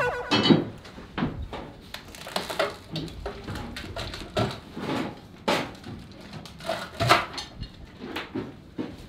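Irregular knocks and bangs of wooden framing work: lumber being handled and struck, a dozen or so sharp impacts at uneven intervals.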